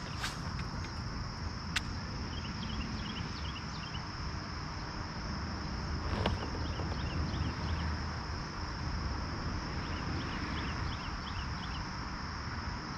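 A steady, high-pitched drone of insects such as crickets, with groups of short chirps repeating every few seconds and a low background rumble. A few sharp clicks break through, one near the start, one about two seconds in and one about six seconds in.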